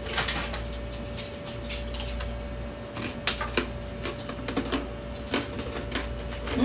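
Irregular small clicks and scrapes of a spoon and chips working in a bowl of freshly mashed guacamole, as it is stirred and dipped. A steady hum runs underneath.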